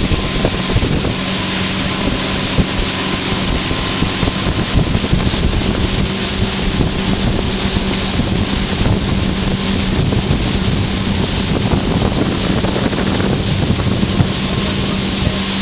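1997 SeaSwirl cabin cruiser under way, its Volvo Penta 5.7L V8 running steadily with a constant low hum, mixed with wind buffeting the microphone.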